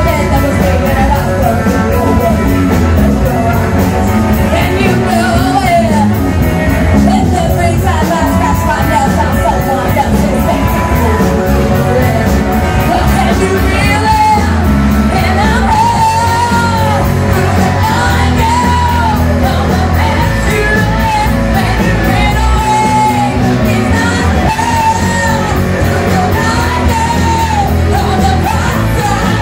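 Live rock band playing loudly, with a lead singer whose held, wavering notes come in about halfway through. The recording is oversaturated and distorted.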